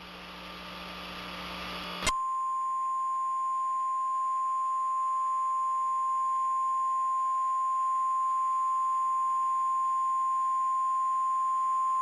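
A hiss with a low hum grows louder for about two seconds. Then a steady single-pitch emergency alert attention tone near 1 kHz sounds for about ten seconds and cuts off abruptly.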